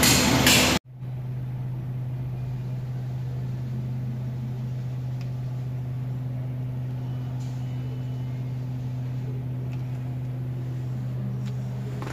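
A loud rushing noise cuts off abruptly under a second in. Then a Toyota Rush's engine idles with the car stopped, heard from inside the cabin as a steady low hum: the cabin drone and rumble the owner is tracking down.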